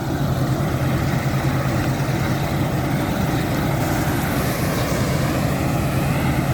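Combine harvester running steadily in the field: a constant low engine hum under a continuous wash of machine noise from the working harvester.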